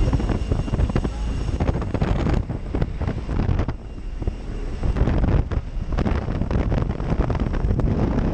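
Engine of a small jump plane and wind rushing through its open door, buffeting the microphone in uneven gusts.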